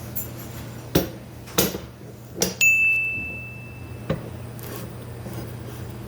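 Sharp metal-on-metal knocks over a steady low hum. One knock sets a metal part ringing with a clear tone for about a second and a half, until another knock stops it.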